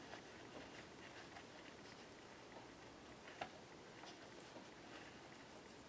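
Near silence with faint handling sounds: twine being threaded through a grommet in a paper bag and knotted, giving a few soft small ticks and rustles, the clearest about three and a half seconds in.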